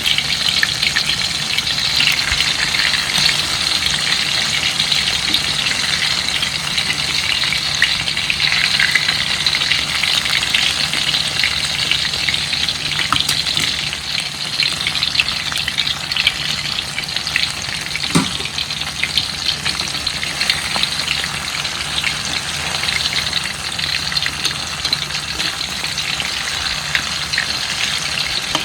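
Bananas frying in hot oil: a steady sizzle full of small crackles and pops. There is one brief squeak about two-thirds of the way through.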